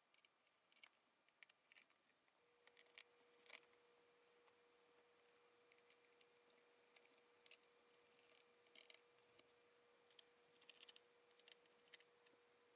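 Near silence, broken by faint scattered small clicks and ticks. A faint steady tone sets in about two seconds in.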